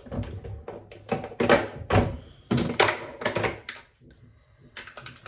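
A quick series of thunks and taps in a small room, then a brief lull about four seconds in before a few more.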